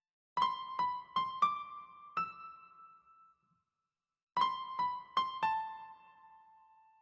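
Background music: a short, high melody of about five single keyboard notes, each dying away, then the same phrase repeated about four seconds later.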